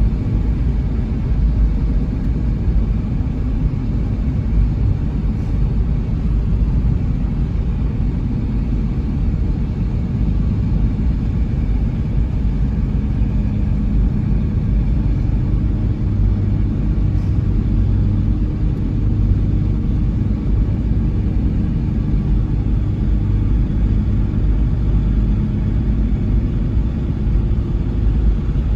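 Steady low rumble of a motor vehicle running, engine and road noise without a break.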